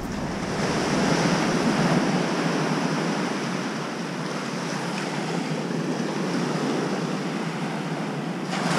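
Small waves washing up on a sandy shoreline: a steady rush of surf.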